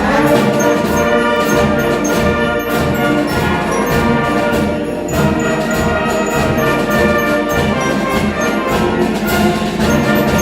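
Live music from a school ensemble: brass-led full chords held over a steady low beat.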